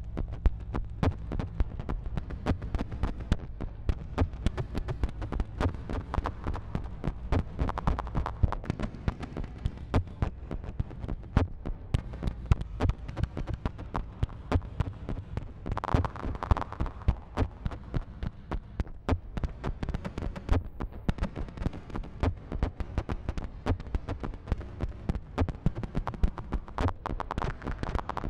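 Modular synthesizer playing experimental electronic music: a steady low drone under many fast, irregular clicks, with a brighter tone swelling in about halfway through and again near the end.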